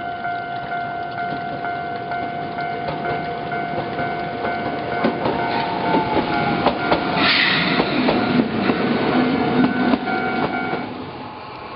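Level-crossing warning bell ringing in an even, repeating pattern that stops near the end. Under it a Toei Arakawa Line tram rolls past, with wheels knocking over the rail joints, a brief wheel squeal about seven seconds in, and a low motor hum as it goes by.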